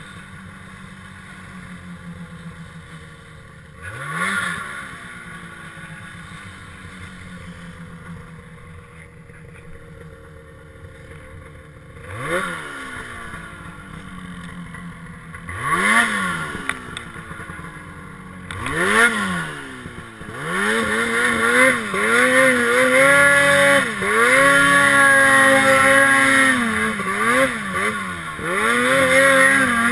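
Snowmobile engine running low with short throttle blips about four, twelve, sixteen and nineteen seconds in. From about twenty seconds it is revved up and held high, its pitch rising and falling with the throttle.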